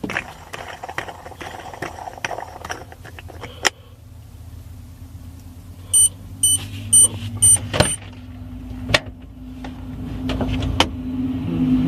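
Scattered clicks and knocks of hands working around the gear lever inside a small car. About six seconds in comes a quick run of five short, high electronic beeps, with a low steady hum underneath that grows louder near the end.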